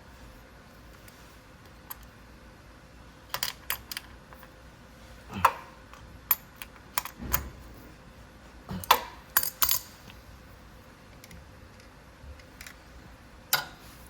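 Small metal tools and parts clinking and tapping on a workbench: about a dozen sharp, irregular clicks and clinks, the loudest two in the middle.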